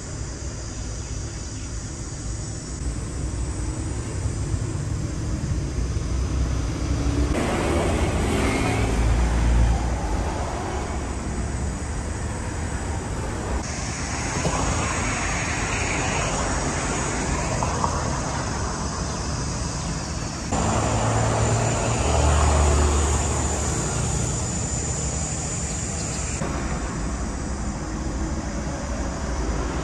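Street traffic: a steady low rumble of cars on the road, swelling for stretches of several seconds as vehicles pass.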